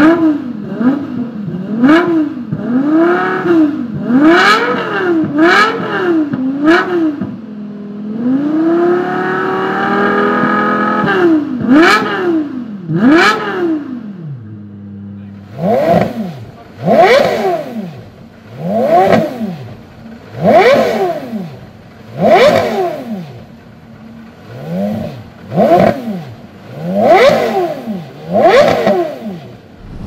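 Lexus LFA's V10 free-revving while parked: a run of quick throttle blips and one longer, higher rev held for a couple of seconds. About halfway through it gives way to a Porsche Carrera GT's V10 revved in sharp blips about every second and a half, dropping back to idle between them.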